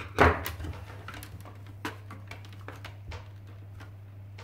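Plastic laptop screen assembly and bezel being handled: a loud knock about a quarter second in, then scattered light clicks and taps of plastic, over a steady low hum.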